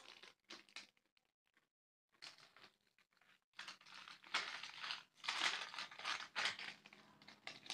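Plastic snack-packet crinkling in irregular bursts as the packet is handled and opened.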